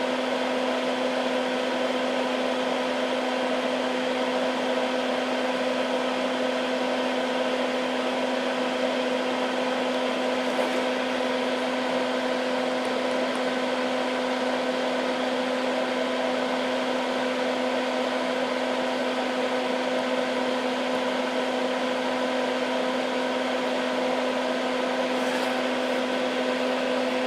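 Hakko soldering smoke absorber's fan running steadily: an even whirring hiss over a constant low hum.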